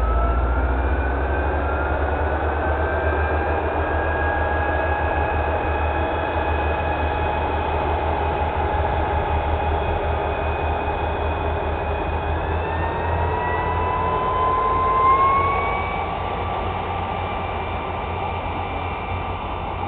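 Homemade radio-controlled model airplane in flight, its motor and propeller giving a steady whine that slides up and down in pitch. The whine climbs and grows loudest about fifteen seconds in, then eases off, over a constant low rumble.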